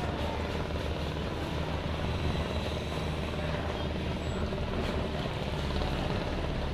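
Fast passenger ferry's engines running steadily as it comes alongside the pier, a continuous low drone.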